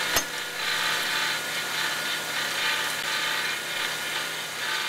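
CNC saw-grinding machine side-grinding the carbide-tipped teeth of a circular saw blade: a steady grinding hiss with a faint machine hum, swelling and fading about once a second. A sharp click comes just after the start.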